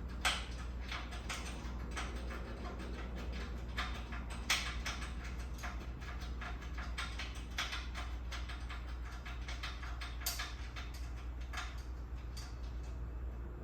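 Irregular small clicks and taps of a bolt, washer and lock washer being fitted and tightened by hand on a miter saw mounting bracket, over a steady low hum.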